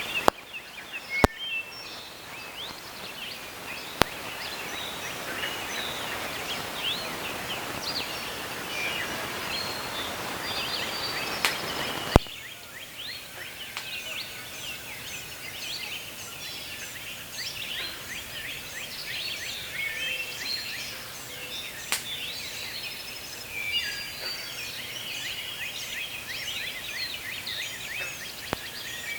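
Many birds chirping and calling outdoors, with a steady rushing noise underneath for the first twelve seconds or so that stops abruptly, and a few sharp clicks.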